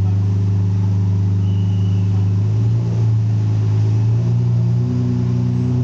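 Lamborghini Murciélago's V12 engine idling, a steady low drone whose pitch rises slightly about three seconds in and again shortly before the end.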